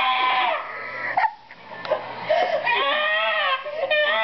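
A person's voice making high-pitched, drawn-out wailing sound effects, like crying: one that ends about half a second in, a longer one about two seconds in, and another starting near the end.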